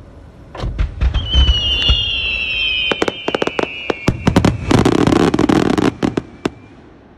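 Aerial fireworks shells bursting: deep booms about half a second in, then a string of sharp cracks and a dense crackling burst. High whistling tones slowly fall in pitch through the middle.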